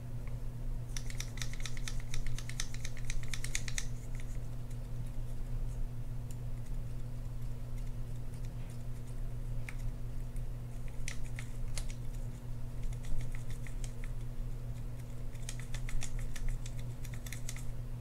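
Toothbrush bristles scrubbing dirt and old grease off the metal frame of an Abu Garcia Ambassadeur 6500CL baitcasting reel, in quick scratchy strokes that come in three spells, over a steady low hum.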